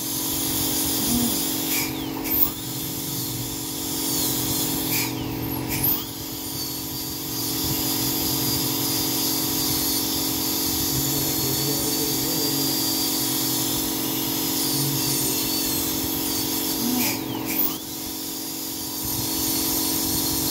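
High-speed dental handpiece (air-turbine drill) running with water spray as it cuts on a tooth, likely preparing teeth for porcelain crowns. It gives a steady high whine and hiss over a steady low hum, with short breaks about 2, 6 and 17 seconds in.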